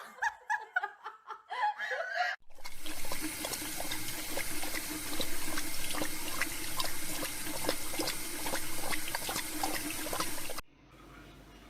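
Water running steadily, with small splashing clicks, for about eight seconds, then cutting off suddenly. Before it come a couple of seconds of short, separate high-pitched sounds.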